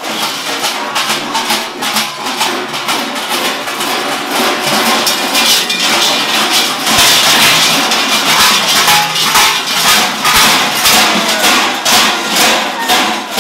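Many large Klaubauf bells, the copper-coloured bells strapped to the costumed figures, clanging and jangling together as their wearers shake and stamp. The result is a loud, dense clatter that swells in a regular beat in the second half.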